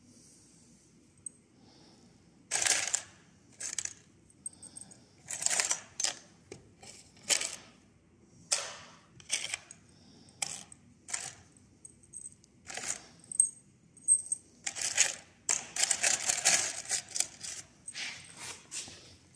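Loose metal screws clinking and rattling in a box as a hand rummages through them: irregular sharp clinks a second or so apart, with a longer run of rattling about three quarters of the way through.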